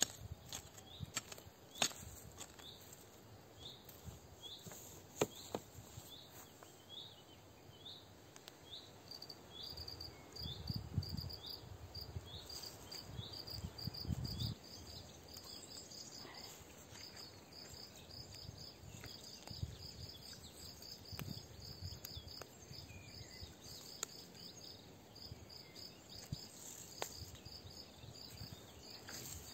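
Faint sound of gardening by hand: a small hoe knocking and scraping in loose soil, with a few sharp knocks in the first few seconds and a louder rustle of hands working the soil about a third of the way in. High chirping is heard throughout: a quick repeated series of short falling notes at first, then a cricket chirping steadily from about a third of the way in.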